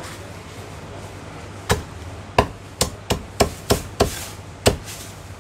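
Heavy cleaver chopping a cooked Zhanjiang chicken through bone on a thick round wooden chopping block: about eight sharp chops starting about a second and a half in, most coming quickly one after another.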